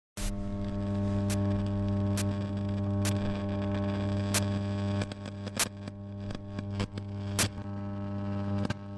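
Old-television sound effect: a steady electrical mains hum with static hiss and sharp clicks about once a second, the hum weakening after about five seconds.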